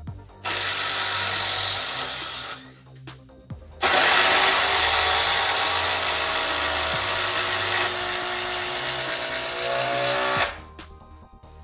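Makita brushless impact drivers hammering long batten screws into pine: a burst of about two seconds, then a longer run of about six and a half seconds that cuts off suddenly. Background music plays underneath.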